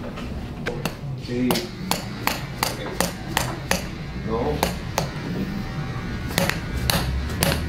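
A series of sharp knocks from a steel pipe being struck, irregularly spaced and at their quickest about three a second, over low voices in a busy room.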